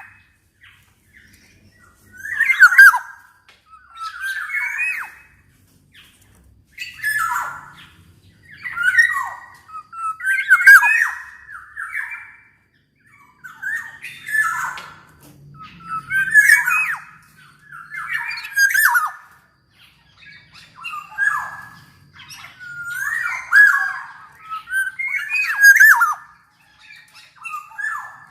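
Black-naped oriole (kepodang) calling over and over, in short phrases about two seconds apart, each a mix of clear notes and a rasping, scratchy note.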